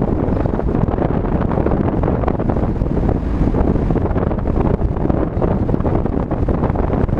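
Steady road and wind noise of a moving car, with wind rushing over the microphone.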